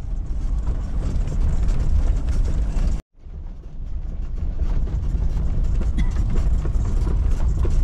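Jeep driving over a rough, broken mountain road: a loud, steady low rumble of engine and tyres with rattles and knocks. It cuts off abruptly about three seconds in, then resumes.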